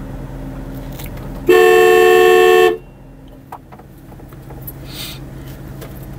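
Car horn sounded in one long, steady blast of just over a second, starting about a second and a half in. It is a call to the household to come and open the gate.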